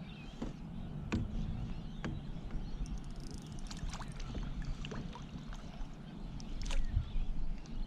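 Sounds on a fishing kayak on the water: scattered sharp clicks and knocks over a steady low rumble of wind and water, with a louder knock near the end.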